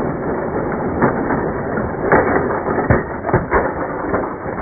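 Plastic toy train and its plastic track grinding and rattling under a foot pressing down on them, with a few sharp plastic clacks about two to three and a half seconds in.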